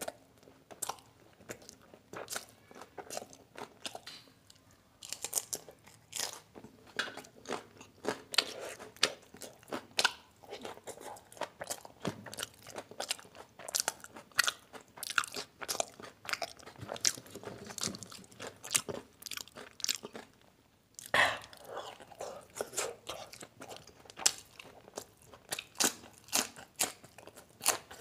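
Close-miked eating sounds of a person biting and chewing raw green chillies with chicken liver curry: a long run of crisp crunches, several a second, with a short pause about three quarters of the way through.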